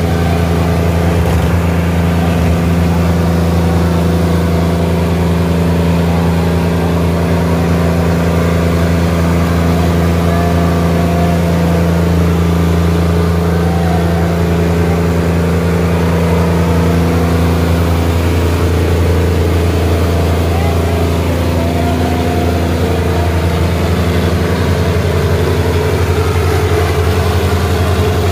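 Diesel engines of two tractors hitched back to back for a tug-of-war, a New Holland and a Sonalika, running steadily close by, their note shifting slightly about eighteen seconds in.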